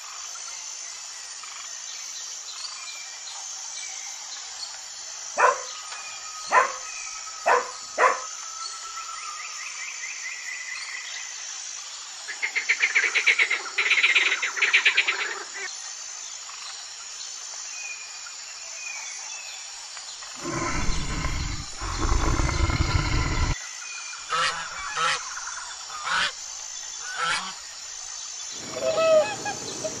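Tropical forest soundscape of animal calls over a steady high buzz. Bird calls come and go: four sharp calls about a second apart, then a fast trill. Past the middle a loud, deep call lasts about three seconds, followed by several more short calls.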